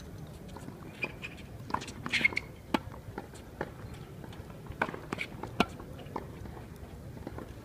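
Tennis balls being struck with rackets and bouncing on a hard court during a practice rally: a series of sharp pops, roughly one every half second to second, over faint spectator chatter.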